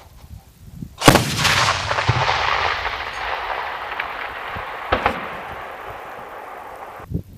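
ZU-23 twin 23 mm anti-aircraft autocannon firing a burst that starts abruptly about a second in, followed by a long rolling echo that slowly fades. A second sharp bang comes near 5 seconds, and the sound cuts off suddenly near the end.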